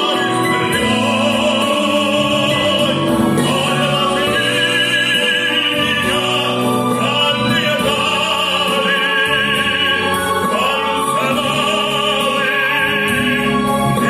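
A man singing into a microphone in a full, operatic style with vibrato, amplified through a PA, over a steady musical backing track.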